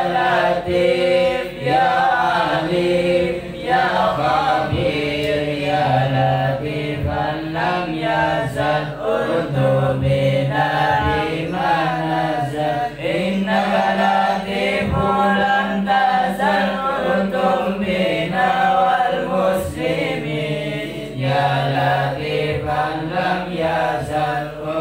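Men's voices chanting Arabic dhikr together in a slow, drawn-out melodic chant, the lead voice amplified through a microphone.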